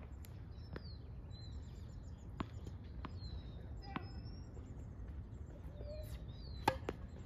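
A tennis ball bounced a few times on a hard court before a serve, then struck hard by the racket on the serve near the end, which is the loudest sound. Birds chirp throughout.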